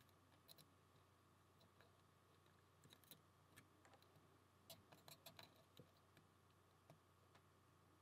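Faint, sparse clicks of a lock pick working the pin stacks of a Lockwood 668-based challenge lock under tension, with a small cluster about three seconds in and a denser run around five seconds in.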